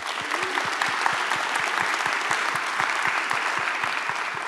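Audience applauding: many people clapping steadily, easing off near the end.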